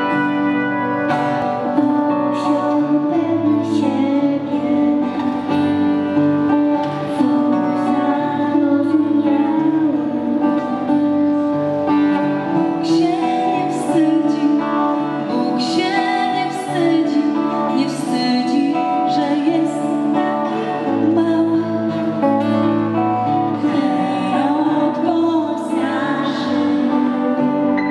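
Live music: a woman singing a Christmas carol into a microphone, accompanied by acoustic guitar and an ensemble with brass and violin.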